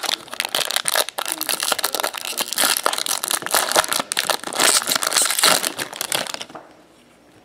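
Silver foil wrapper of a Bowman Chrome baseball card pack being pulled open and crumpled by hand: a dense crinkling crackle that stops about six and a half seconds in.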